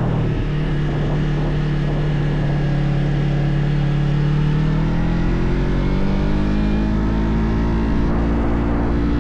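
Motorcycle engine under way, heard from the bike. Its note shifts right at the start, like a gear change, eases down slowly, then rises steadily through the second half as the bike accelerates.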